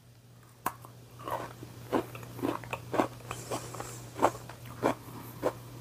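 A pecan sugar cookie dipped in icing is bitten once, with a sharp crack about half a second in, then chewed with crunches roughly every half second to second.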